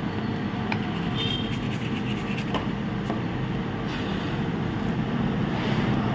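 Steady whirring of a fan or air blower, with a few faint clicks.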